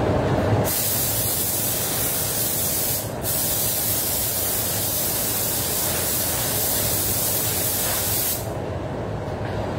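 Air spray gun hissing as it lays clear coat on a car bumper: two long passes, starting just under a second in, with a brief break about three seconds in, stopping shortly before the end. The paint booth's ventilation runs as a steady low rumble underneath.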